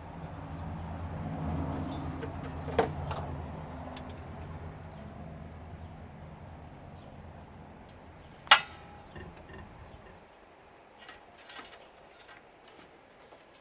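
Insects chirping steadily in the background under a low hum that fades away about ten seconds in. A few light clicks and one sharp metallic clank about eight and a half seconds in come from parts being handled while a TV is stripped for scrap.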